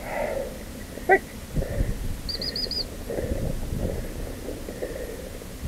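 Bird calls: a short call about a second in, then four quick high chirps a little after two seconds in, over low rumbling.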